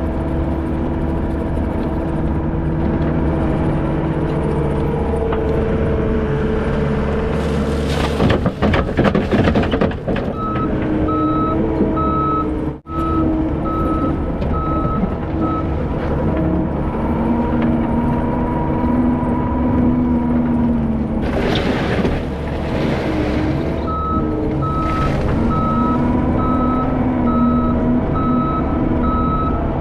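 Heavy diesel construction machine running steadily, with its reverse backup alarm beeping in evenly spaced beeps for a few seconds in the middle and again near the end. Twice the sound surges louder with a rushing noise.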